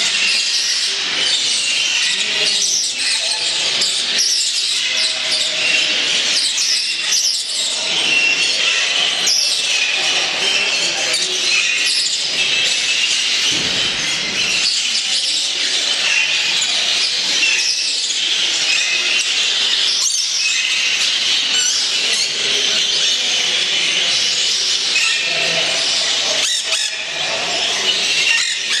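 Many small caged parakeets chirping and chattering at once: a dense, continuous din of high calls.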